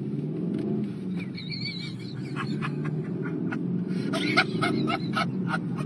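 Car engine and road noise heard from inside the cabin while driving, a steady drone. From about two and a half seconds in, a quick run of short sharp sounds comes over it.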